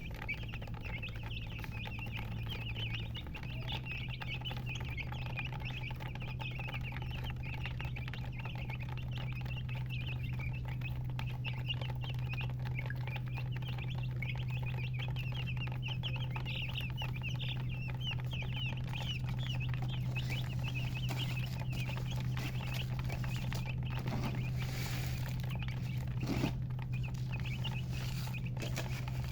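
Many chicks peeping continuously in rapid, high-pitched chirps over a steady low hum.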